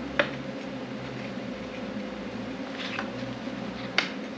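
Three sharp clicks of cut steel pieces knocking together as they are handled and set in place, the first just after the start, a faint one about three seconds in and the last near the end, over a steady background hum.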